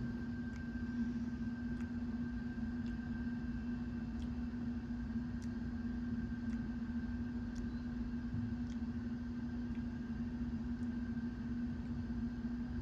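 A steady low mechanical hum with a constant tone and a fainter higher tone above it, unchanging throughout. A few faint scattered ticks sound over it.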